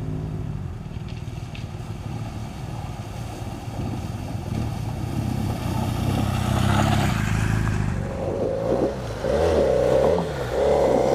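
BMW GS adventure motorcycle engine pulling through a shallow water crossing, growing louder as it nears, with water splashing around six to eight seconds in. Then a louder motorcycle engine close by, its pitch rising and falling with the throttle during a river crossing.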